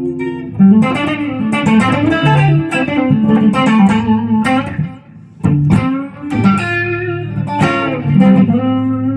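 1996 Epiphone Les Paul Custom electric guitar with Gibson 490 humbucking pickups, played amplified: a quick run of picked notes and riffs, with a short break about five seconds in.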